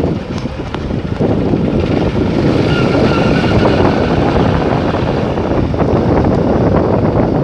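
Wind rushing over the microphone on the move, over the steady running noise of a vehicle travelling along the road.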